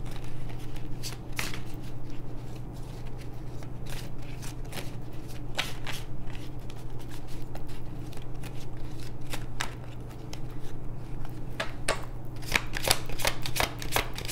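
A small deck of oracle cards being shuffled by hand: a run of quick card-edge flicks and riffles, coming thickest near the end, over a steady low hum.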